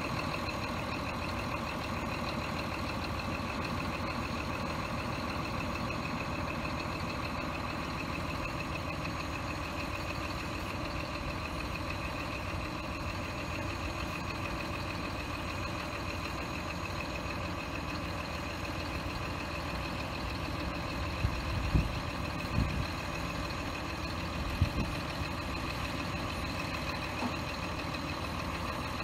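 Scania R420 truck's diesel engine running steadily with a steady whine over a low rumble while its hydraulic loader crane is being operated. A few short thumps come about three-quarters of the way through.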